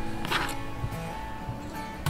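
Background song in an instrumental stretch, acoustic guitar strumming over held notes.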